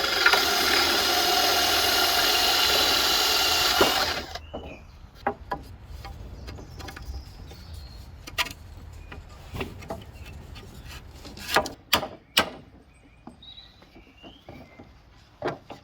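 Hychika DD18F cordless drill driver running under load into wood for about four seconds, then stopping abruptly. Scattered light knocks and clicks of wood and tools being handled follow.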